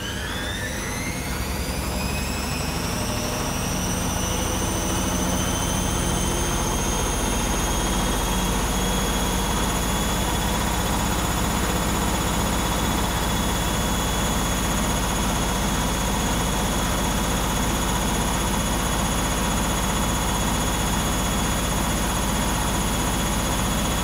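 Arçelik 5900E front-loading washing machine (Bauknecht-built) spinning up with a single wet bath towel as its only load. The motor whine rises in pitch over the first several seconds, then holds steady at high spin speed.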